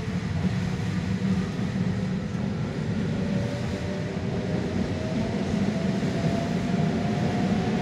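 Naples Metro Line 1 train running, heard from on board: steady wheel-on-rail rumble with a thin motor whine that rises slowly in pitch as the train picks up speed.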